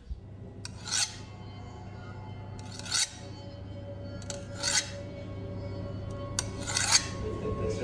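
Eerie horror-film score: a steady low drone, with a short rasping scrape swelling in about every two seconds, four times in all.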